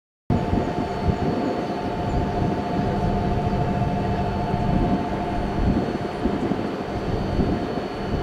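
Tohoku Shinkansen bullet train approaching at speed: a steady rushing rumble with a constant humming tone over it, cutting in abruptly just after the start.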